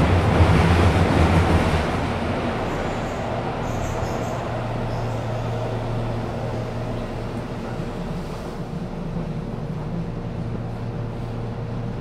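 Keihan Railway train standing at an underground platform, giving a steady electrical hum. A louder rush of noise fills the first two seconds and then dies away.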